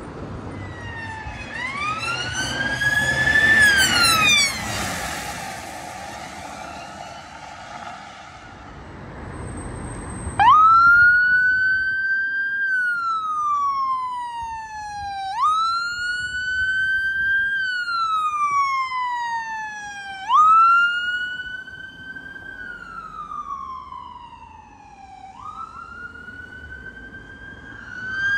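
A siren sweeps upward and passes close by in the first few seconds. Then an ambulance's wail siren repeats a slow cycle, a quick rise and a long falling tone, about every five seconds.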